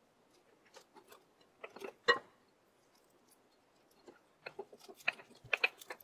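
Light taps, knocks and crunches as sliced onion, jalapeño and fish are packed into a glass jar and pressed down with fingers and a wooden stick. One sharper knock comes about two seconds in, and a quick run of taps near the end.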